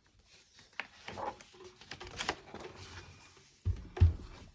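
Paper rustling and handling noises from a picture book being opened and its pages turned, with two soft thumps near the end.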